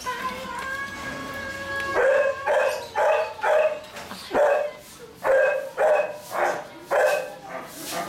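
Belgian Malinois puppies yapping and barking in play while tugging at a cloth. The barks are short and high-pitched, about two a second, starting about two seconds in, roughly ten in all.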